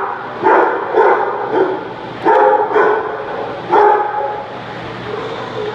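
Dog barking in a run of about half a dozen sharp barks over the first four seconds, then quieter.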